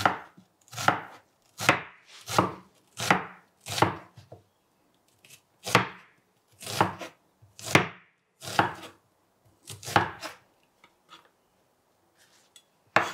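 Chef's knife slicing a brown onion thinly on a wooden cutting board: a run of crisp cuts about one a second, pausing briefly twice.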